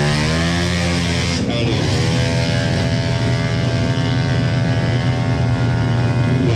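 Race-built 300 cc Yamaha NMAX drag scooter engine revving hard at the launch. The revs rise over the first two seconds, then hold at a steady high pitch as it accelerates down the strip.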